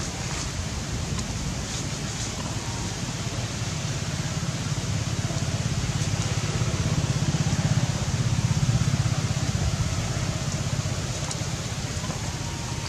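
Wind buffeting the microphone: a low, fluttering rumble over a steady hiss, louder through the middle of the stretch.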